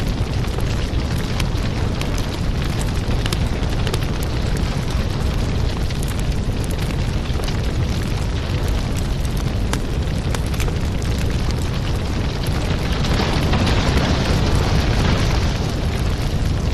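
Firewood burning: a steady low rumble of flame with many small, sharp crackles and pops. The hiss swells for a couple of seconds near the end.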